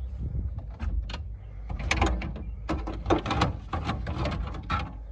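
A busy run of clicks, knocks and scraping from parts being handled and worked loose, as in dash work inside a truck cab.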